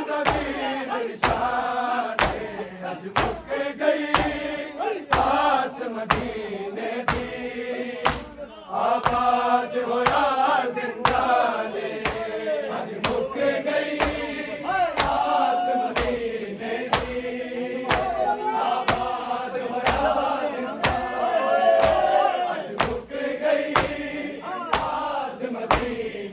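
A group of men chanting a noha lament in unison. Under the chant, sharp claps come in an even beat, about one a second: the hand-on-chest strikes of matam.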